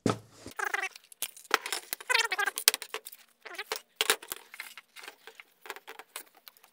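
Thermal-transfer printer ribbon reels and the plastic ribbon cassette being handled by hand. A quick string of small clicks, taps and rattles, with some rustling of the ribbon film.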